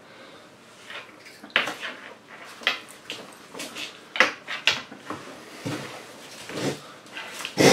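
Irregular clattering: a string of sharp clicks and knocks of small hard objects, spaced unevenly about once or twice a second.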